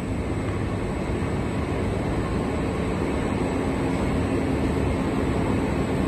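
Steady low rumble of factory machinery, with a faint steady hum running through it.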